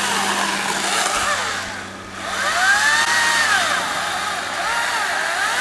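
Electric chainsaw cutting into a tree trunk, its motor whine sagging and rising again and again as the chain bites and frees, over the rasp of the cut. It eases briefly about two seconds in, then bites again.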